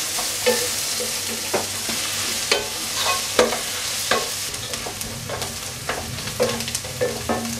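Sliced onions, green chillies and curry leaves sizzling in coconut oil in a nonstick pot while a wooden spatula stirs them, scraping and tapping against the pan at irregular intervals. The onions are being sautéed toward golden brown.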